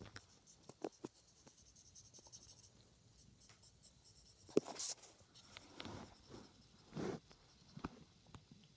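A stylus scratching and tapping on a phone's glass screen in light, irregular strokes. A sharp click comes about halfway through, and there are two longer swishing rubs near it and a couple of seconds later.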